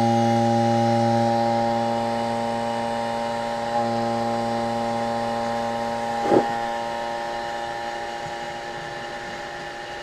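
HVAC vacuum pump running steadily, evacuating the ice machine's refrigeration system: a steady pitched motor hum that grows gradually quieter, with a brief knock about six seconds in.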